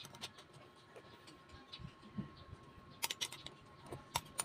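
Faint eating sounds: quiet chewing and swallowing with a few light clicks of tableware, bunched about three seconds in and again near the end.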